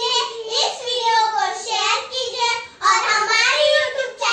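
Young girls singing in high voices, unaccompanied, with notes held and broken off every half second or so.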